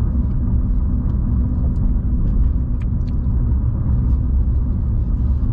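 Steady low rumble of a car heard from inside the cabin, the engine and road noise running evenly with a few faint clicks.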